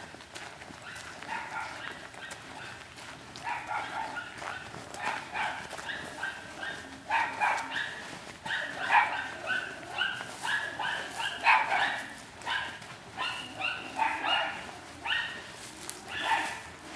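A dog barking over and over, about one bark every half second to a second. The barks start faint and grow louder a few seconds in.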